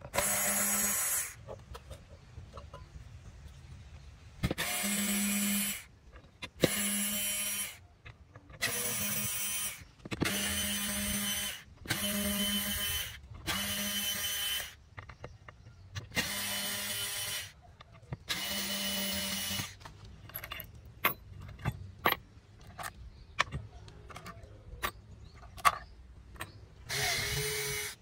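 Small cordless electric screwdriver running in short bursts of about a second each, about ten times, driving screws out of a rusty amplifier's metal case and heat-sink rail. Between the later runs come a series of sharp clicks and taps.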